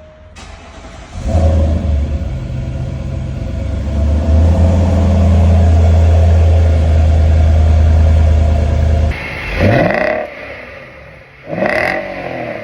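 Big petrol V8 engine started up, running at a loud, steady fast idle for several seconds, then revved twice, each blip rising and falling in pitch.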